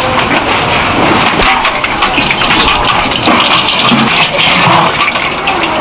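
Busy noodle-kitchen noise: water splashing and pouring, with many small clicks and clatters throughout.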